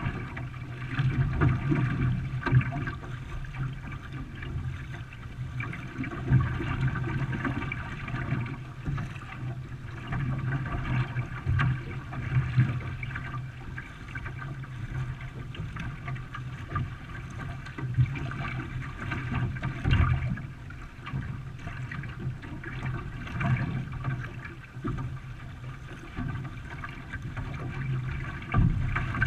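Water splashing and trickling around a racing canoe being paddled, with irregular louder splashes.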